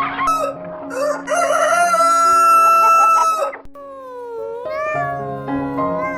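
A rooster crowing once, a long call lasting about three seconds. From about four seconds in, a cat meows several times, rising and falling in pitch.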